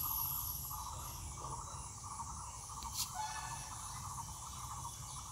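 Insect chirping in a steady trilled pulse, about two pulses a second, over a low rumble, with a single sharp click about three seconds in.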